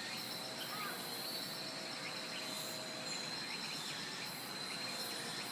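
A chorus of insects in the grass, their steady high-pitched trill running unbroken, with a few faint chirps over it.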